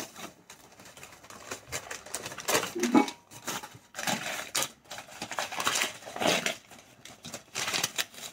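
Wrapping paper rustling and crinkling in irregular bursts as it is pulled off a clay pot.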